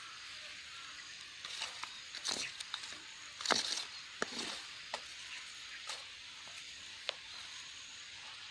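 A bamboo skewer holding a grilled fish being handled and turned over a charcoal fire: a scatter of clicks, taps and rustles, loudest about three and a half seconds in, over a steady hiss.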